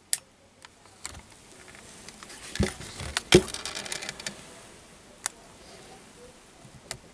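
Scattered clicks and knocks from the plastic handset of a handheld endoscope camera being handled and turned over in the hand. The loudest knock comes a little before halfway and rings briefly.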